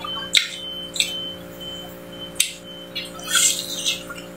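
Close-up eating sounds: chewing and wet lip smacks with a few sharp clicks, busier near the end as chicken is bitten into, over a faint steady high-pitched whine.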